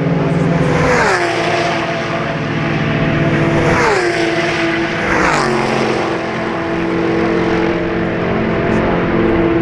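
Race cars passing one after another at full speed, engines at high revs; each engine note drops sharply in pitch as the car goes by, three times, about a second in, at four seconds and a second later.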